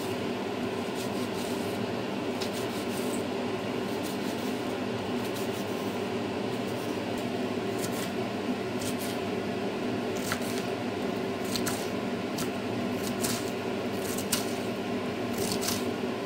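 Kitchen knife dicing an onion on a wooden cutting board: irregular light knocks of the blade on the board, coming more often in the second half, over a steady background hum.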